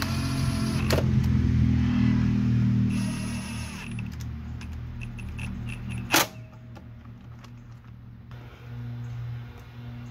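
Cordless drill-driver whirring in short bursts as it runs in a bolt on a motorcycle's front fork leg by the axle. Small clicks follow, then one sharp knock about six seconds in.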